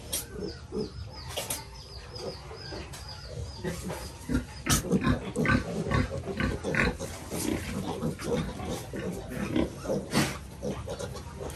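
A sow and her litter of piglets grunting, many short grunts in quick succession that grow busier and louder about four seconds in, with a few brief high piglet squeals.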